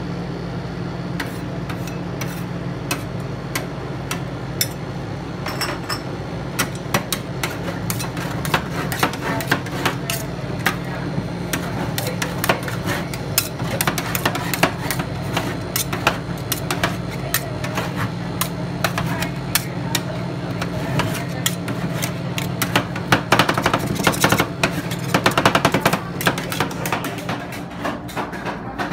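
Metal spatulas chopping and scraping a matcha ice cream base on a steel cold plate as it freezes: rapid clacking strikes, sparse at first, getting denser and louder, and heaviest a few seconds before the end. A steady low hum runs underneath.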